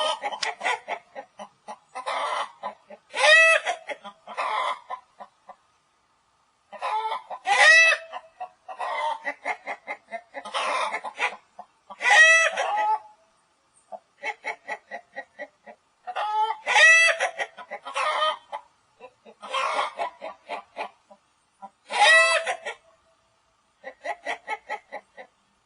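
Hen cackling: runs of short clucks, each ending in a loud drawn-out squawk, repeated over and over with brief pauses. This is the call of a hen about to lay an egg.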